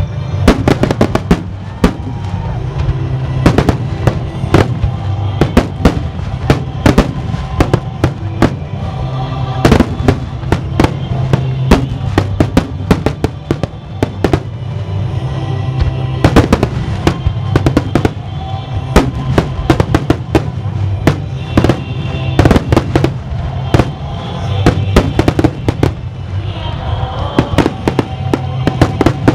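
Aerial firework shells bursting in rapid, irregular succession, dozens of sharp bangs with no pause, over music played with the display.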